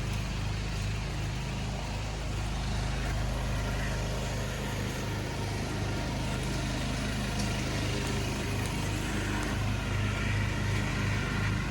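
Riding lawn tractor's small engine running steadily, with a low, even pulsing throb.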